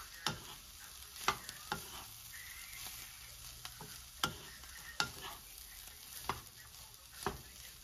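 Wooden spatula stirring diced pork offal in a nonstick frying pan over a faint sizzle, knocking against the pan about seven times at uneven intervals.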